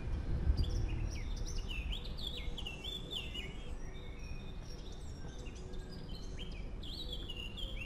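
Songbirds chirping and singing in quick runs of short notes, busiest in the first few seconds and again near the end, over a low steady rumble.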